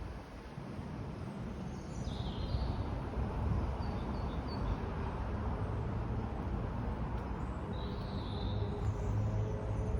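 Storm wind buffeting the microphone: a steady low rumble and hiss, with a few short high bird chirps.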